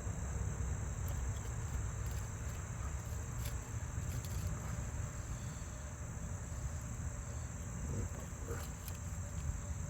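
Insects chirring steadily in the background, an even high-pitched drone, over a steady low rumble, with a few faint clicks.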